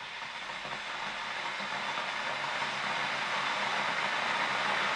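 Glass electric kettle heating water, giving a hiss that grows steadily louder. This is the rising pre-boil noise of small steam bubbles forming at the hot base and collapsing in the cooler water above.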